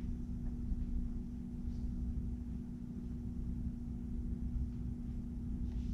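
Steady low room hum with a constant drone, and a couple of faint taps on the laptop keyboard.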